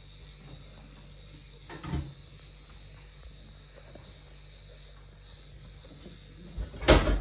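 Kitchen handling sounds over a low steady hum: a single knock about two seconds in, then a loud clatter of cookware near the end.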